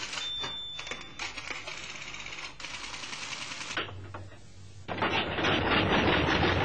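Rapid mechanical clatter that drops briefly and then comes in louder and denser about five seconds in: an early aeroplane's piston engine running with its propeller spinning.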